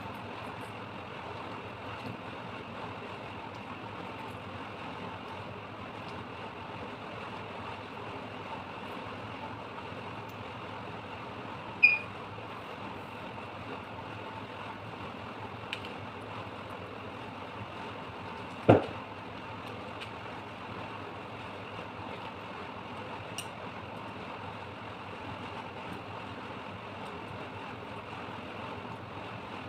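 Steady background hum and hiss, broken by two sharp knocks about seven seconds apart.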